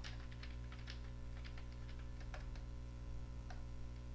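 Computer keyboard keystrokes: a quick run of key clicks over the first second and a half, then a few single presses. A steady electrical hum runs underneath.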